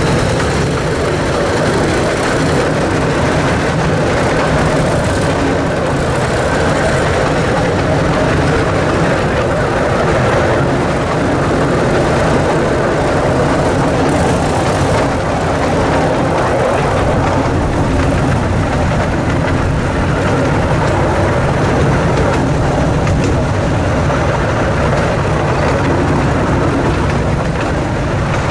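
Miniature ride-on train running steadily along its track, heard from a passenger car: the locomotive's gasoline engine running under load, together with the noise of the cars' wheels on the rails.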